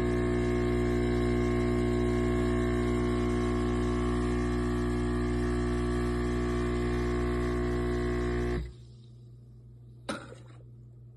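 Neretva 15-bar espresso machine running with a loud, steady electric buzz that cuts off suddenly about nine seconds in, followed about a second later by a single short click or beep.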